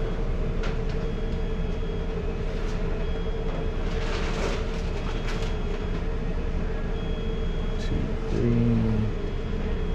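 Steady low machinery hum of a fast-food restaurant interior, with a constant mid-pitched whine, a few faint clicks, and a brief low tone stepping in pitch near the end.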